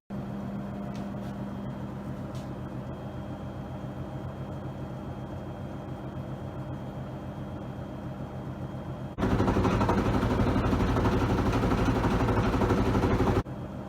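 TWINBIRD WM-EC70W washing machine running its spin cycle, a steady motor hum. About nine seconds in it turns abruptly much louder and rougher for about four seconds, then drops back to the steady hum.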